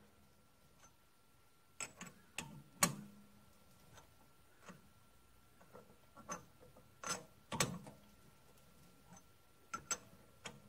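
Irregular metallic clicks and knocks from a chuck key turning the jaw screws of a four-jaw lathe chuck, loosening and tightening the jaws to true up the work piece. Each knock rings briefly, and the loudest comes about three seconds in.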